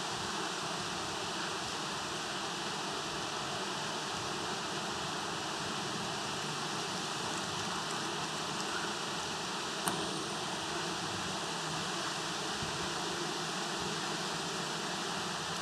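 Steady, even outdoor hiss with no distinct source, and one faint click about ten seconds in.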